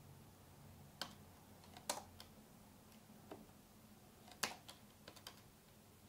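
Computer keyboard keys pressed one at a time, about eight faint separate clicks, as a BIOS menu is stepped through.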